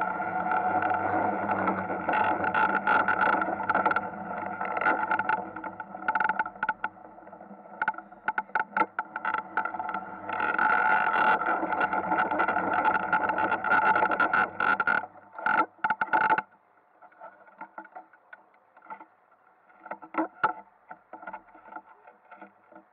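Ice kart's motor running steadily, with rattling and scraping as the kart drives over ice. About sixteen seconds in the motor sound drops away sharply, leaving faint knocks and rattles.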